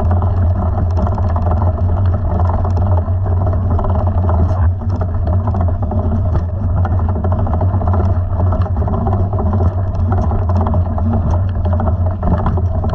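Mountain bike rolling and rattling over a loose, rocky gravel track, with a steady low wind rumble on the bike-mounted camera's microphone.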